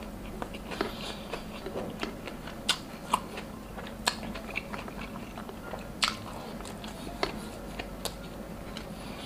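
Close-miked eating: chewing and biting into grilled meat with rice and salad, with a scatter of sharp crisp clicks and crunches every second or so.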